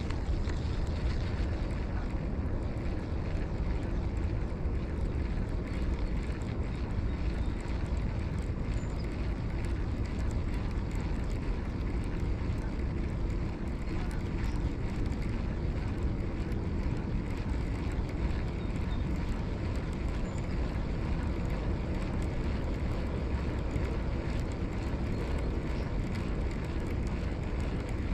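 Steady wind buffeting the microphone, a low rumbling rush.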